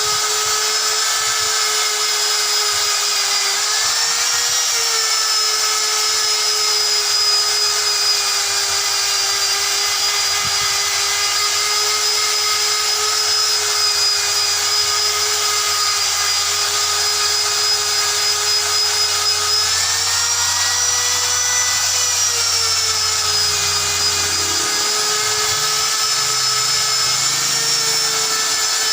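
A handheld rotary power tool running continuously with a steady high whine. Its pitch rises briefly twice, about four seconds in and again around twenty seconds in, as the load on it eases.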